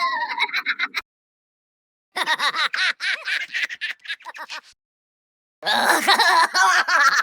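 Cartoon character laughter sound effects played as separate clips with dead-silent gaps between them: high-pitched snickering and giggling in rapid pulses. A clip ends about a second in, another runs from about two seconds to nearly five, and a longer, denser cackle starts near six seconds.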